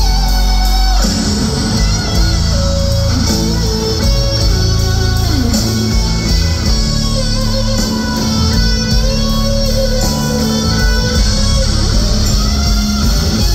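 Live rock band playing an instrumental passage without vocals: electric guitar to the fore over drums and bass guitar, loud and steady.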